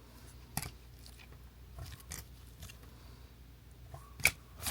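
Trading cards being handled and flipped through, giving a few scattered short clicks and light rustles over a faint steady hum, with the sharpest click near the end.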